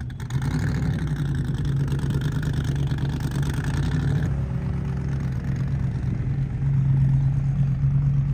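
An engine running steadily with a low, even hum. The sound changes abruptly about four seconds in and gets a little louder near the end.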